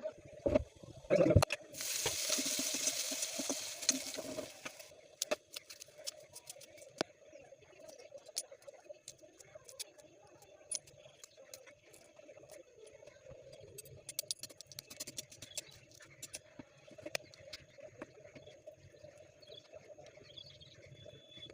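Kitchen food-preparation sounds: two sharp knocks, then a hiss lasting a couple of seconds, followed by scattered light clicks and taps of utensils over a steady hum.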